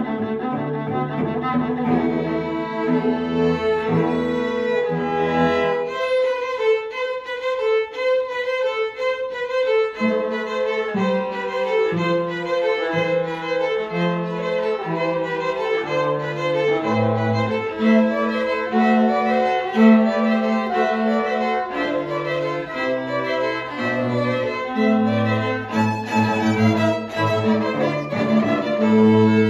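Small string ensemble of violins and cello playing a piece together, the violins carrying the melody over the cello line. About six seconds in the low cello part drops out for roughly four seconds, then comes back.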